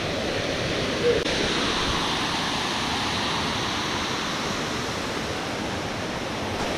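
Steady rush of a waterfall heard close by, an even wash of falling-water noise. About a second in there is one short, louder blip with a brief pitch to it.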